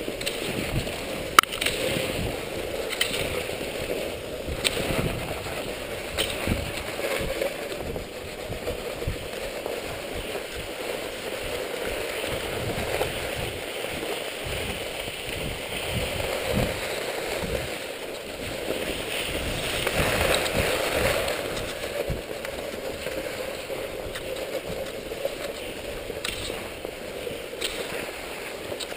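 Cross-country skis sliding over packed, groomed snow with a steady hiss, while the poles plant in the snow and wind buffets the microphone in irregular low rumbles. A sharp click comes about a second and a half in.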